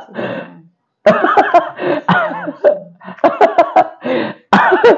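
People laughing, in several bursts with a short pause about a second in, with breathy outbursts between the laughs.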